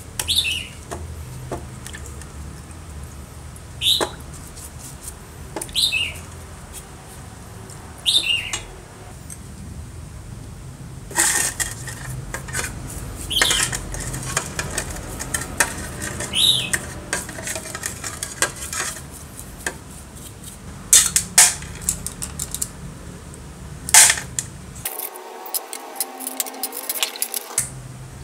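A bristle paintbrush scrubbing small metal air-compressor pump parts in a stainless steel bowl of cleaning liquid, with sharp clinks and scrapes of metal against the bowl every few seconds over a steady low hum.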